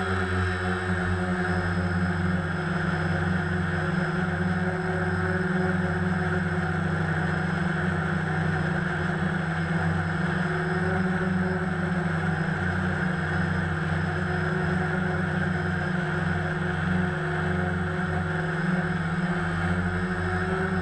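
DJI Phantom quadcopter's motors and propellers in flight, a steady multi-tone hum, picked up by the GoPro in its waterproof housing on the airframe.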